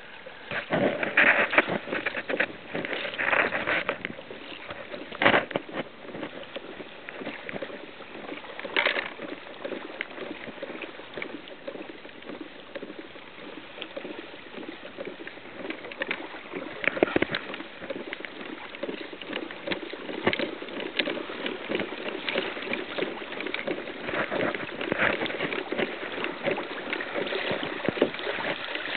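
Water sloshing and splashing around a plastic kayak's hull as it moves fast through the water, with irregular splashes and knocks throughout.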